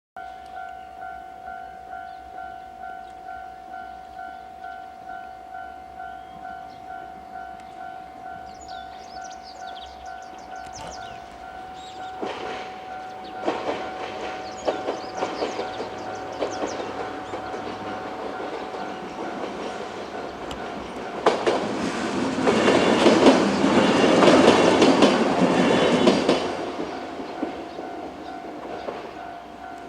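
Japanese level-crossing alarm ringing steadily at about two beats a second while a 103 series electric train approaches and runs over the crossing. Its wheels clatter over the rail joints, growing from about halfway in, loudest shortly before the end, then fading.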